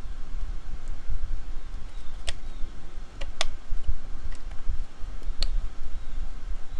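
Sharp clicks and taps of plastic as an e-bike's controller cables and housing cover are pushed into the frame by hand, about four in all, two close together near the middle. A steady low rumble runs underneath.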